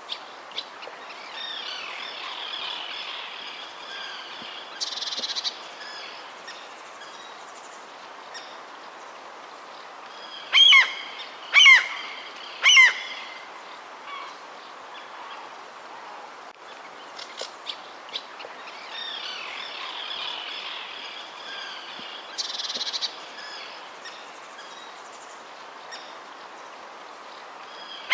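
Outdoor bird chorus: many small chirps and songs over a steady background hiss, with three loud calls about a second apart midway through.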